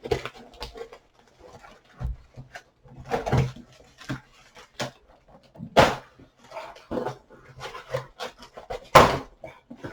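Heavily taped cardboard box being forced open by hand: irregular rustling, scraping and tearing of tape and cardboard, with two loud sharp cracks, one a little past the middle and one near the end.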